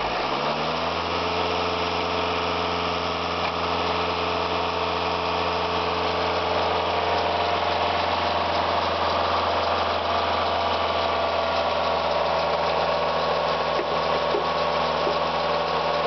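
Old carburetted four-cylinder car engine running with its valve cover off and camshaft exposed. Its revs rise over the first second, then it settles into a steady idle.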